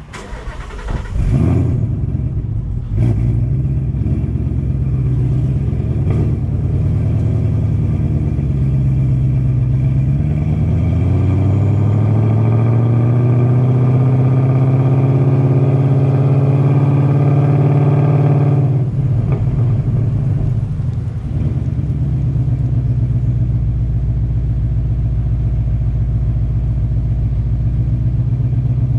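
Vortech-supercharged 5.0 L V8 of a 2019 Mustang GT with long-tube headers and a free-flowing exhaust. The engine comes up loudly about a second in, with a sharp exhaust crack near three seconds, then runs in a deep steady note. As the car pulls away the note rises slowly for several seconds, drops off suddenly on a lift or shift, and settles into a steady low rumble while it rolls.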